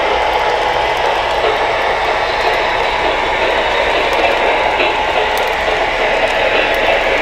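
O gauge model freight train running on three-rail track: a steady rolling rattle of wheels and cars on the rails, with scattered small ticks.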